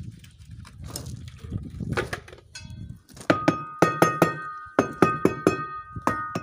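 Low scraping and shuffling, then from about three seconds in a quick series of sharp knocks, about three a second, each with a clear metallic ring.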